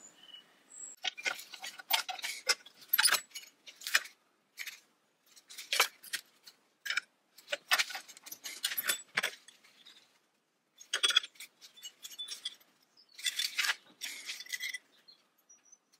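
Small pieces of sheet steel and metal tools clinking, tapping and scraping against each other and the workbench as a bracket is shaped and clamped, in irregular clusters with two short pauses in the second half.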